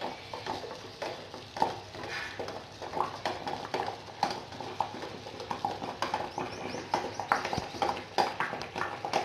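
Water boiling in a steel saucepan used as a water bath, with a small steel bowl sitting in it; the bubbling comes with many irregular light ticks and knocks of the bowl against the pan.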